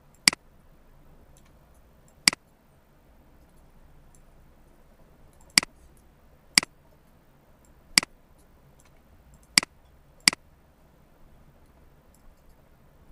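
Computer mouse button clicking seven times at irregular intervals, sharp single clicks, as objects are selected and dragged.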